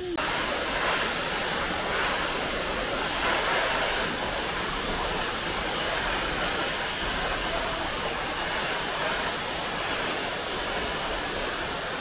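Pinaisara Falls, a tall waterfall on Iriomote, pouring onto the rocks at its foot: a steady, even rush of falling water that cuts in suddenly at the start.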